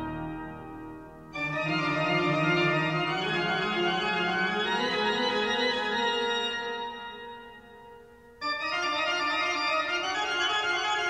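Background music of long held chords. The chords fade out and strike up again sharply, about a second in and again near eight seconds.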